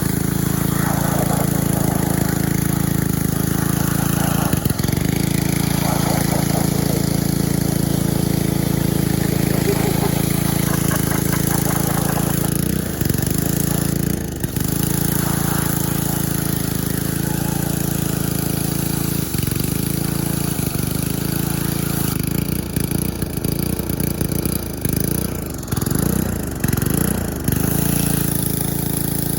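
Small gasoline engine of a pressure washer running steadily under a high hiss, its pitch sagging briefly several times, more often near the end.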